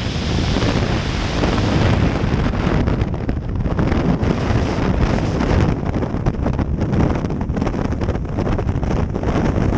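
Freefall wind rushing over the microphone of a skydiver's camera: a loud, steady roar of buffeting air.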